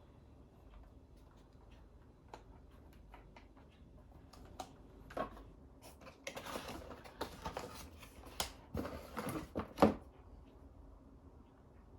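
Typing on a custom mechanical keyboard fitted with silent switches: soft, muted keystrokes, sparse at first, then a quicker run of louder presses in the second half, with one sharper clack near the end.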